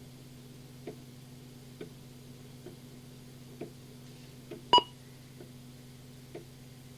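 Scanner-radio reception of a phone line: a steady low hum with faint ticks a little under once a second, and one short, sharp beep about three-quarters of the way through.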